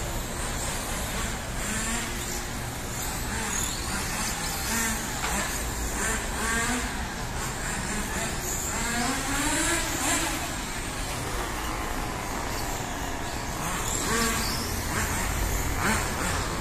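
Radio-controlled on-road cars lapping a track, their motors whining up and down in pitch as they speed up and slow for the corners, over a low steady rumble.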